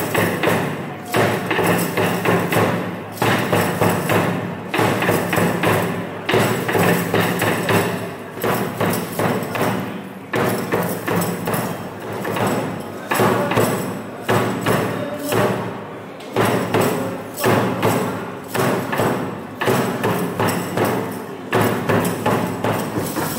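Traditional bugaku dance accompaniment: steady drum beats, about two a second, over a held low tone.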